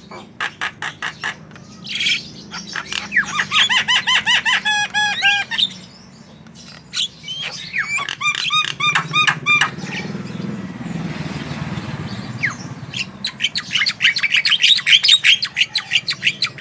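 Javan myna singing in loud, quick series of repeated chirps and fast runs of rising notes, with a harsh rasping stretch in the middle; its song is trained with mimicked phrases.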